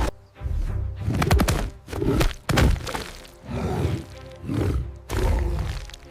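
Dramatic film-score music with repeated heavy impact hits and crashes over it, several strong strikes landing through the stretch.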